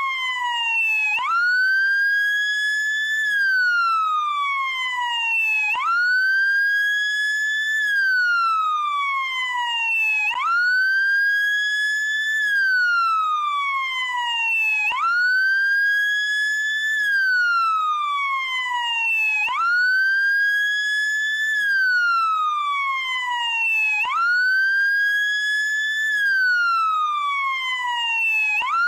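Electronic wail siren of a SAMU motorcycle ambulance. Its pitch sweeps up quickly, holds briefly, then falls slowly, repeating about every four and a half seconds, six cycles in all.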